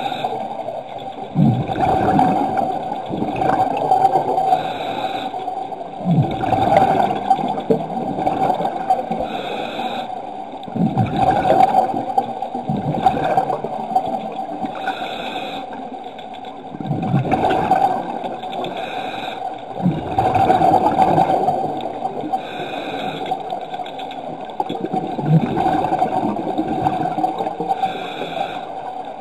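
Scuba diver breathing through a regulator underwater: a hiss on each inhale, then a rush of bubbles on each exhale, repeating every four to five seconds.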